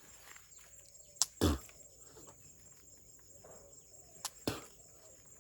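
Spitting out a mouthful of chewed betel nut juice twice, each a sharp lip click followed by a brief spray, about three seconds apart. A steady chorus of crickets runs underneath.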